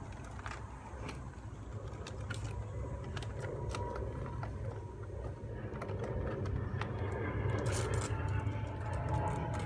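Pearly conure scratching and chewing at cardboard boxes: scattered sharp clicks and short scrapes over a steady low hum.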